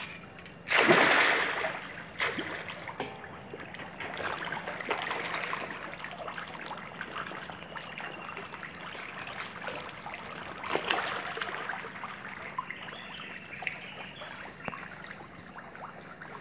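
A crowd of fish splashing and churning the water's surface as they feed, with a loud burst of splashing about a second in and another near eleven seconds.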